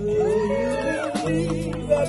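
Live rock band with electric guitars and bass playing a slow rock song. Over the chords, a high lead line wails and bends in pitch.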